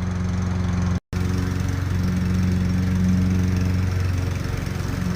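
Lawn mower engine running steadily, with a split-second dropout about a second in.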